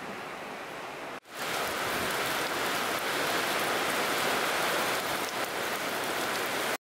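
Rain falling on wet ground and puddles, a steady hiss. After a short break about a second in it comes back louder, then cuts off abruptly at the end.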